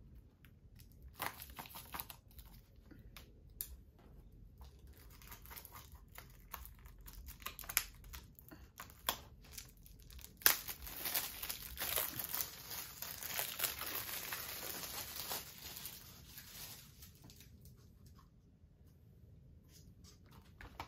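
Plastic shrink-wrap being torn and peeled off a Blu-ray case. Scattered clicks and crackles come first; about halfway there is a sharp snap, followed by several seconds of steady crinkling that dies away near the end.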